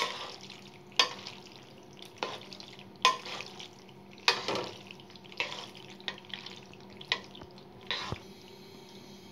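Spatula stirring macaroni, chicken and thick white sauce in a metal pot, scraping and knocking against the pot about once a second. The strokes stop near the end.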